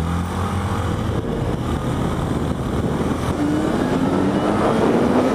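Yamaha XJ6's 600 cc inline-four engine accelerating hard. Its pitch climbs, drops at gear changes and climbs again, over a steady rush of wind.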